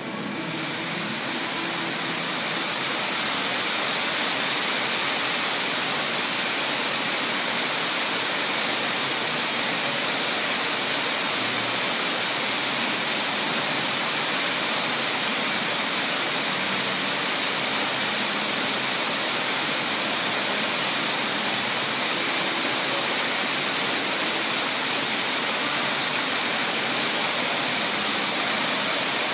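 Fountain water jets shooting up and splashing back into the pool: a steady rushing splash that swells over the first few seconds as the jets rise, then holds level.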